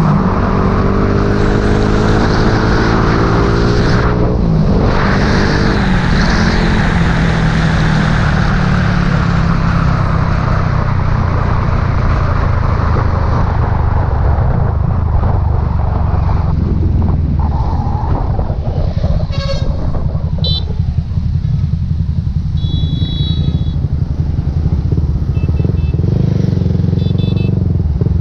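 Motorbike engine running at road speed while riding, with heavy wind and road noise over the microphone. The noise eases off in the second half.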